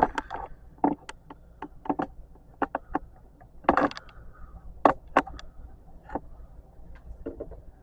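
Irregular light clicks and knocks of Romex electrical cable being handled and stripped by hand, with a few sharper snaps a little under a second in and around the middle.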